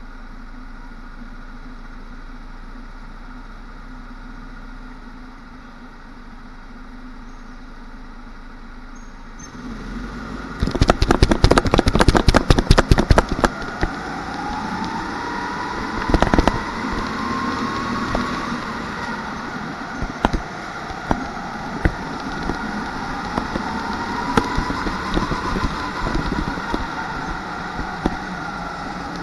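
Onboard sound of a rental go-kart: a steady low hum at first, then about ten seconds in a few seconds of loud rattling and clattering. After that the kart's motor note rises and falls smoothly through the corners over wind and track noise, with occasional knocks.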